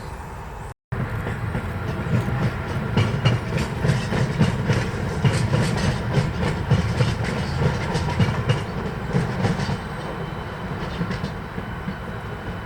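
Tram passing on its rails: a low rumble with a rapid, irregular clatter of wheel clicks over rail joints, loudest in the middle and easing off near the end. A brief dropout to silence just under a second in.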